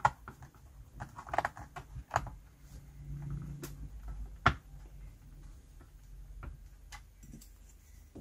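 Screwdriver working a small screw out of a plastic steam iron's housing: scattered light clicks and taps, with a sharper click about four and a half seconds in.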